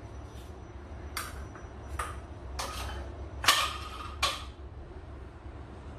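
A handful of light clicks and knocks of a utensil against a dish as the cream filling is scraped out of Oreo cookies, the loudest about three and a half seconds in with a short ring.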